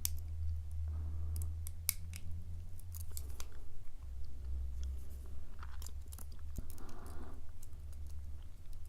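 Lock pick working inside a steel padlock's keyway: irregular light metallic clicks and scrapes as the pick rides over the pins and warding of a rough-feeling lock. A steady low hum runs underneath.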